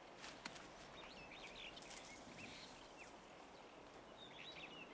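Near silence: quiet outdoor ambience with a few faint, high chirping calls, about one second in, midway, and near the end.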